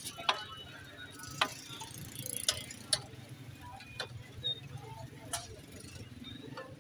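Metal ladle clinking against a large aluminium cooking pot while chickpea curry is served, six or so sharp, irregular clinks with a brief ring, over a steady low street hum.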